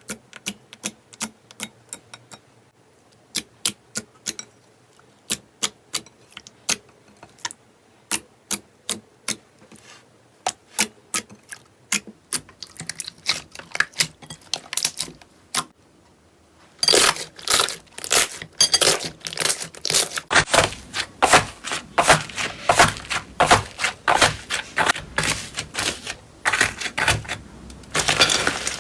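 Slime being worked by hand, giving a run of sharp clicks and pops, about two or three a second. A little over halfway through they turn louder and denser, into a rapid crackle.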